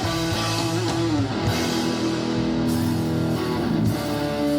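Live amplified band playing an instrumental guitar break between sung choruses, a guitar leading over bass.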